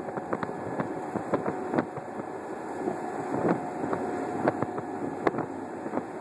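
A boat under way on open sea: a steady engine hum under wind buffeting the microphone, with irregular sharp thumps throughout.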